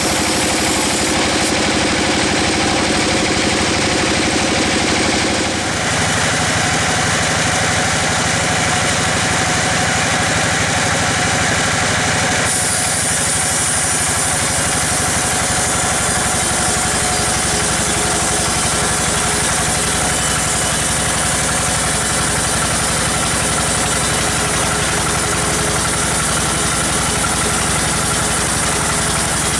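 Sawmill machinery running steadily, an engine-driven saw working a teak log. The sound changes about six seconds in and again about twelve seconds in, turning brighter and hissier.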